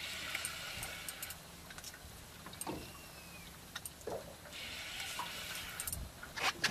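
Spinning reel being cranked in two spells, a whirring hiss about a second and a half long at the start and again near the end, as line is won back from a heavy cod bending the light rod. Small clicks and a steady low hum run underneath.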